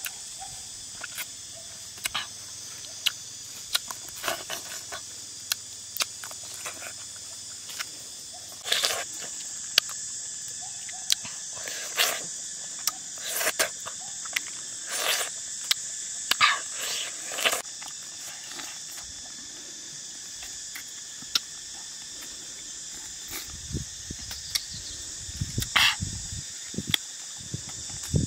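Close chewing and lip-smacking of someone eating ripe yellow mango, coming in short sharp bursts, over a steady high-pitched insect chorus. A low rumble comes in near the end.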